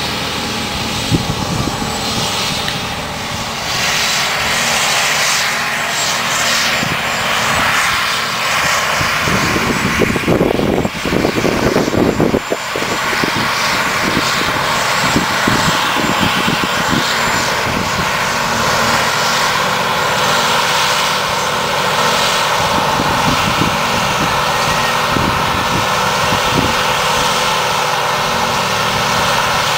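Diesel engines of a New Holland self-propelled forage harvester and a Deutz-Fahr tractor pulling a silage trailer, running steadily under load while chopping grass for silage. The sound is a continuous drone with a hiss over it, with a louder, rougher stretch around ten to thirteen seconds in.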